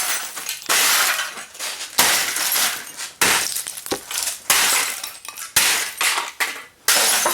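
Glass of a Sony Trinitron CRT computer monitor being smashed by repeated blows, about eight strikes, each followed by a burst of breaking, shattering glass that quickly dies away.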